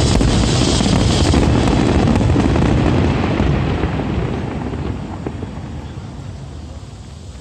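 Fireworks display: a dense, continuous rumble of booms and crackle that holds for about three seconds, then fades away steadily.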